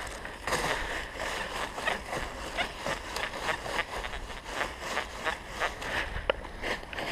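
Dry fallen leaves rustling and crackling as a metal detector's coil is swept through leaf litter and undergrowth, in short irregular swishes a couple of times a second. There is one sharper tick a little past six seconds.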